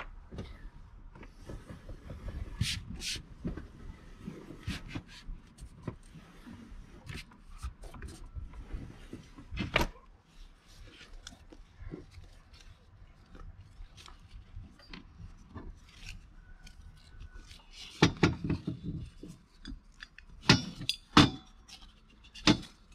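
Handling noise as a strap and buckle are worked around a Campingaz gas bottle in a cramped wooden storage compartment: rubbing and scattered clicks and knocks, with several louder knocks near the end.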